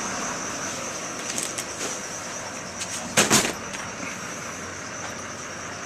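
Steady running noise of tour coaches close by, a hum and hiss with a faint high whine over it, broken about three seconds in by a sharp double knock.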